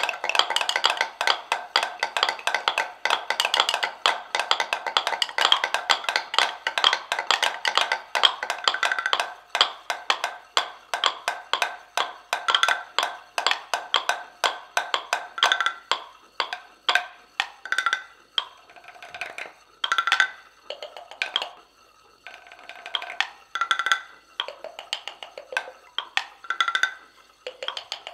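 An ensemble of seven wooden mortars played as percussion, tapped and struck in interlocking rhythms. A dense, fast clatter fills the first third, then thins to sparser, irregular knocks, each with a short pitched wooden ring.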